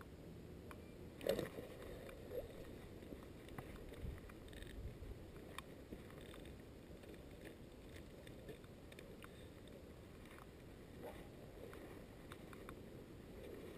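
Quiet handling sounds of a fishing rod and line as a small fish is landed: scattered light clicks and rustles, with one louder knock about a second in.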